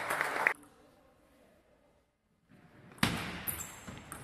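Celluloid-style table tennis ball knocking on the table at a steady pace, cut off about half a second in, then near silence for about two seconds. About three seconds in a rally starts again with a sharp loud hit, further ball knocks and a brief high squeak in a large hall.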